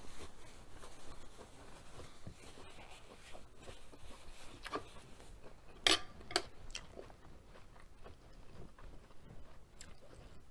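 Soft chewing with the mouth closed, then a metal fork clinks twice against a metal sheet pan about six seconds in.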